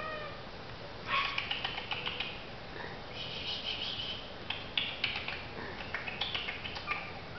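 Three-week-old chihuahua puppies shuffling over a tile floor, their paws and claws scuffing and scratching in several short spells.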